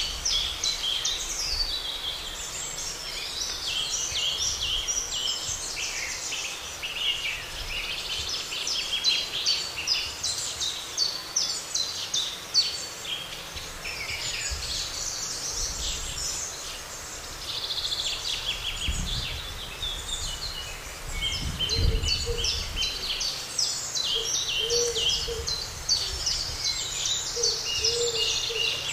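Several songbirds singing and chirping at once in a dense spring chorus of overlapping trills and twitters, with two brief low rumbles in the second half.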